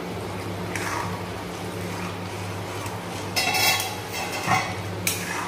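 Steel lid lifted off a kadai, then a metal ladle clinking and scraping against the pan as fish curry is stirred, with a few sharp clinks in the second half. A steady low hum runs underneath.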